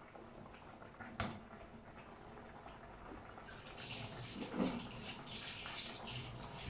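Water splashing steadily, starting about three and a half seconds in, after a single knock about a second in.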